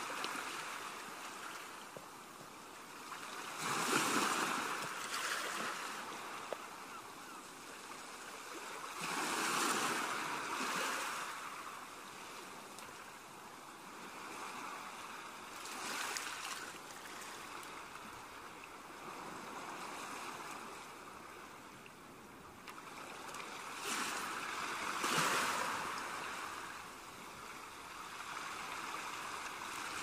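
Small sea waves washing against a rocky shore, the wash swelling and fading in surges every several seconds.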